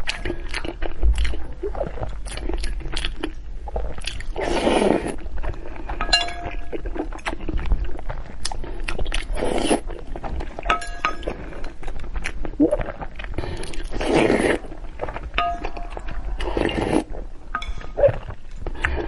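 Eating sounds: chewing, with utensils clinking against a bowl now and then, some clinks ringing briefly.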